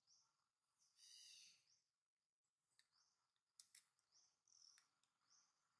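Near silence: faint high chirps repeating about twice a second, a brief louder call about a second in, and a few sharp clicks in the middle.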